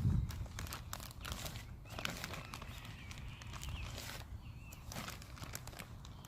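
Topsoil being worked by hand on a lawn bare spot: irregular crunching, rustling scrapes with scattered small clicks.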